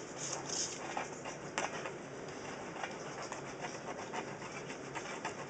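Faint scratching with light, irregular clicks: a blade scraper taking old silicone off aquarium glass.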